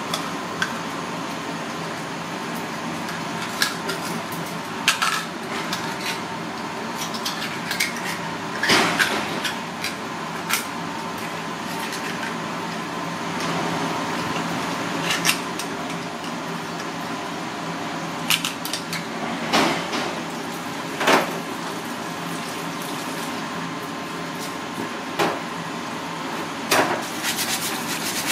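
Small knife prying open and scraping inside red clam (ark clam) shells, with irregular sharp clicks and clinks of metal on shell over a steady background hiss.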